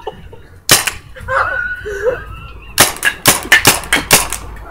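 Paintball gun firing sharp pops: one shot about a second in, then a quick string of about seven shots near the end. A short laugh or voice is heard between them.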